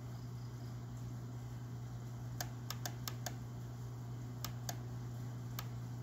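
Scattered sharp clicks from a laptop being operated as its document is scrolled: a quick run of five about halfway through, then three more spaced out near the end, over a steady low hum.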